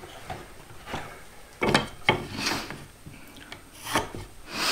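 A 2x4 being shifted on a plywood work table and a speed square set against it while a pencil marks a cut line: a few short wooden knocks and scrapes.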